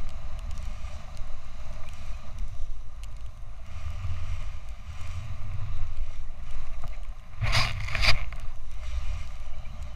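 Wind rushing over a pole-held action camera's microphone as a snowboard slides through deep powder, a steady low rumble. Two short, loud bursts of noise come about seven and a half seconds in.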